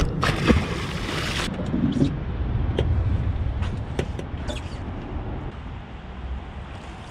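A carp splashing as it is slipped into a keep net in the water, a noisy burst lasting about a second and a half, followed by a low steady rumble with a few light knocks.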